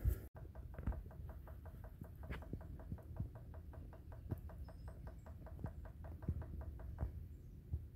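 Red-bellied woodpecker tapping on a tree trunk: an even run of sharp taps, about seven a second, that stops about seven seconds in.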